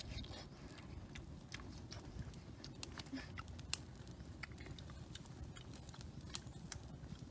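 Small wood fire crackling, with irregular sharp pops and snaps over a low steady rumble.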